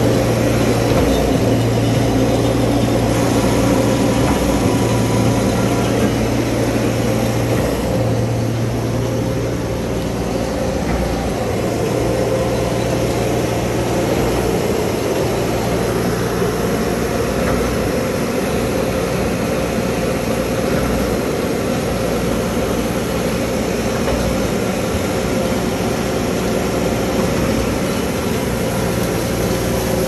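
Steady diesel engine drone of a volumetric concrete truck and a Reed B50 trailer-mounted concrete pump running together, while the truck's mixing auger feeds fresh concrete into the pump's hopper.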